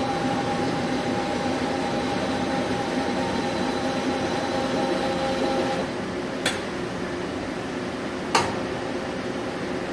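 Bullard Dynatrol CNC vertical boring mill running under power: a steady mechanical hum with a two-note whine that stops about six seconds in, followed by two sharp clicks.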